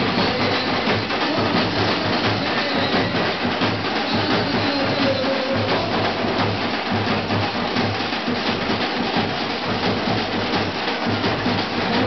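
A tasha drum group pounding out a continuous, loud, rough but steady drum rhythm, dense with strokes and without a break.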